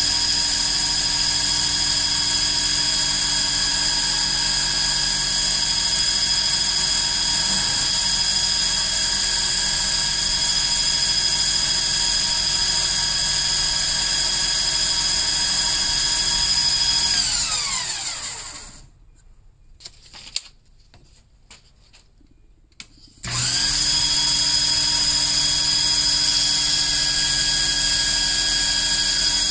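Small lathe motor spinning a pool cue shaft, running with a steady whine. About 17 seconds in it winds down to a stop; after some four seconds stopped, with a few small clicks, it starts up again and runs steadily.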